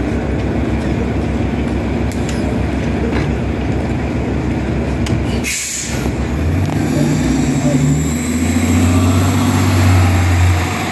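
City transit bus idling at a stop. About halfway through comes a short, sharp hiss of air as the doors close and the brakes release. The engine then rises in pitch and grows louder as the bus pulls away.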